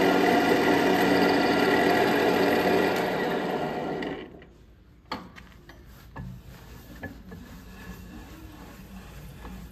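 Daiwa DM-3H 5-shaku general-purpose lathe running with a steady multi-toned hum, winding down and stopping about four seconds in. A few light clicks and knocks follow.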